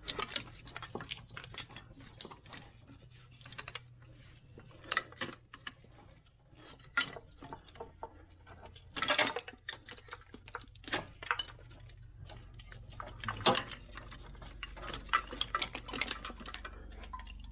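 Irregular light clicks and taps of hand work on an engine: tools and metal parts being handled and set against each other, with a couple of longer scraping rasps.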